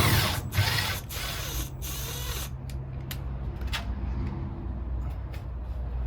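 Power drill running in several short bursts over the first two and a half seconds, then a low steady hum with a few light clicks.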